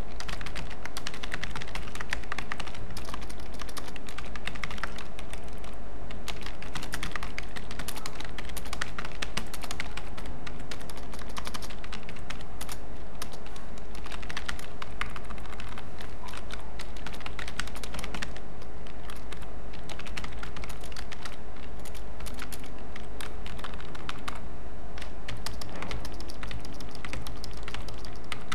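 Computer keyboard being typed on in irregular runs of keystrokes, over a steady low hum.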